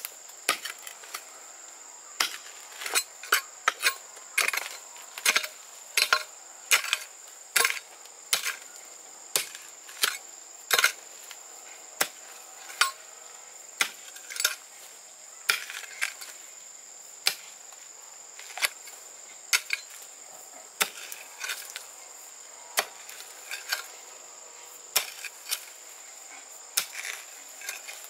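Repeated sharp chopping knocks from a hand tool striking, irregularly spaced at about one or two a second, over a steady high-pitched insect drone.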